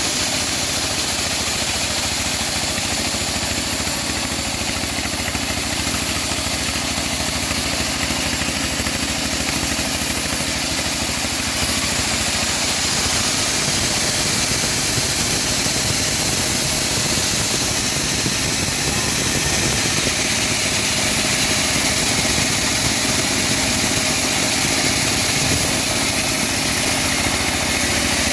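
Homemade engine-driven bandsaw mill running steadily while milling teak logs.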